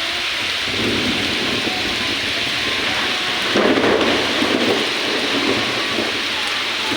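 Heavy monsoon rain pouring down in a steady hiss, with thunder rumbling about a second in and again, louder, from about three and a half seconds.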